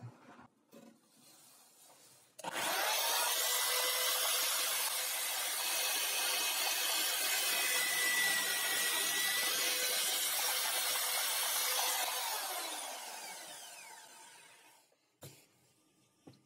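Electric drill in a homemade wooden drill-press stand starts about two seconds in and runs steadily while its bit drills into a block of wood, then is switched off and spins down with a falling whine. A single click follows near the end.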